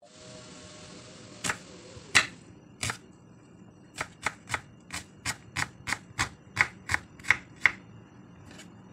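Kitchen knife chopping a red onion on a wooden cutting board. Three separate knocks come first, then a quick even run of about a dozen chops, roughly three a second.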